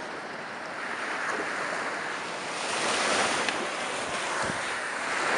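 Sea surf washing up the beach, a wave swelling louder about halfway through.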